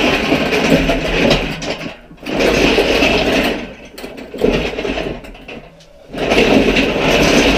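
Steel castors of a hydraulic engine crane, loaded with a hanging engine, rolling and grinding over a tiled floor as it is pushed. The noise comes in several pushes of one to two seconds with short pauses between them.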